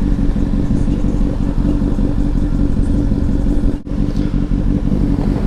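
Honda CBR1000RR sportbike's inline-four engine running at a steady pitch while cruising, heard from on the bike. The sound cuts out for an instant about two-thirds of the way through.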